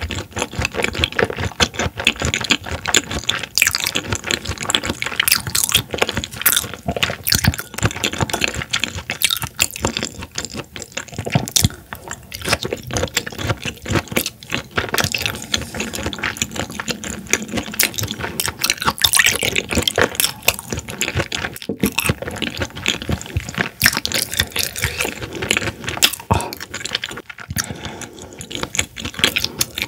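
Close-miked wet chewing and lip smacking of raw horse mackerel sashimi, a dense run of small moist clicks and squelches.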